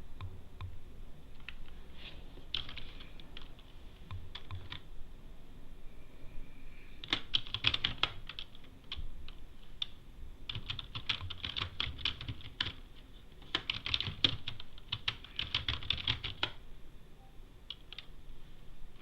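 Computer keyboard typing: a few scattered keystrokes, then several quick runs of keystrokes with short pauses between them.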